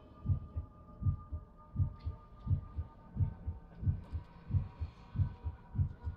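Slow, heartbeat-like drum beat: soft low thumps in pairs, about one pair every 0.7 seconds, over a faint steady drone.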